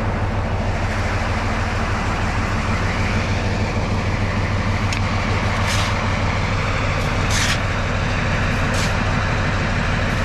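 A diesel locomotive's engine idling steadily, a constant low hum. A few short scrapes sound over it about halfway through.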